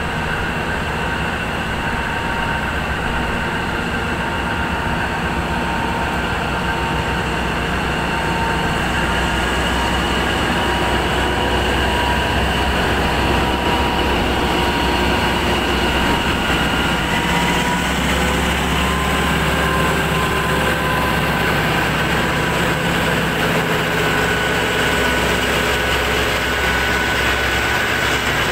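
Diesel locomotive pulling a passenger train slowly out of the station past the listener. The engine's low rumble grows louder from about ten seconds in as the locomotive goes by, and the rolling carriages follow. A steady high whine runs over it.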